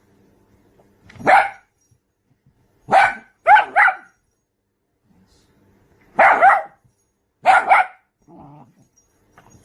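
A dog barking: about seven short barks in groups of one to three, with pauses of a second or two between the groups.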